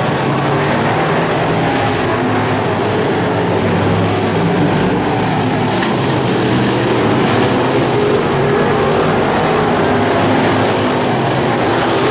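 Several dirt-track stock cars racing together around the oval, their engines running hard in a loud, steady drone.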